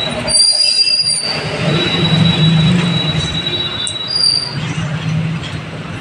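Strong wind buffeting the microphone, with a steady high-pitched squeal over it.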